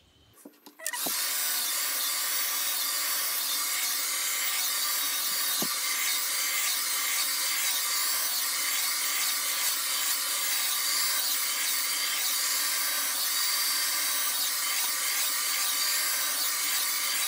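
Hand-held hair blow dryer switched on about a second in, then running steadily at one even pitch while drying damp hair.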